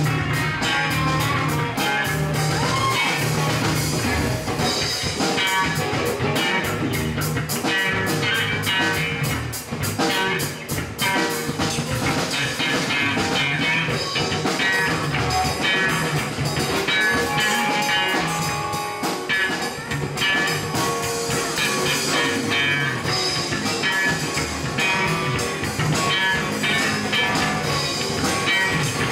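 A live band playing blues: two electric guitars over a steady drum beat.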